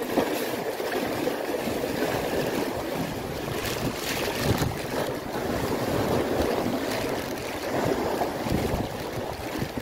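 Strong wind buffeting the microphone over a choppy sea, with waves washing against the breakwater, a steady rushing noise.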